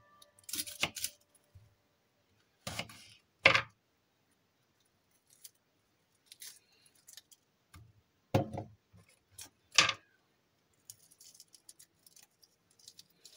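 Scattered knocks, clinks and scrapes of kitchen items being handled while preparing ingredients, several seconds apart, the loudest a sharp knock about three and a half seconds in.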